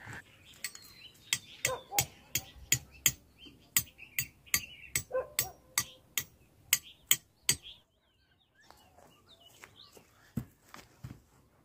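Tent pegs being hammered into hard, dry ground with a stone: a steady run of about twenty sharp knocks, roughly three a second, that stops about eight seconds in, then two more knocks near the end. Birds chirp faintly in the background.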